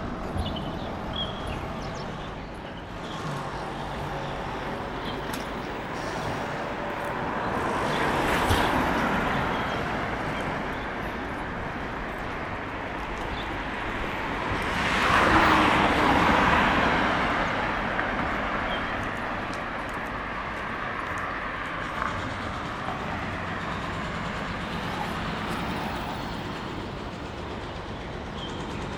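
Road traffic passing on a town street: steady traffic noise with two louder vehicle pass-bys, rising and fading about eight and fifteen seconds in.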